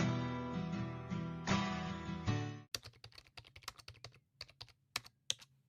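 Background acoustic guitar music that cuts off suddenly about two and a half seconds in, followed by a quick irregular run of sharp clicks.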